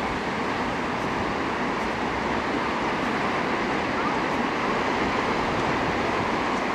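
Steady rushing sound of ocean surf breaking, even and unbroken.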